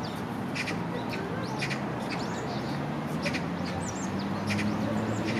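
Small birds chirping, many short, quick high calls over one another, with a low steady hum coming in about four seconds in.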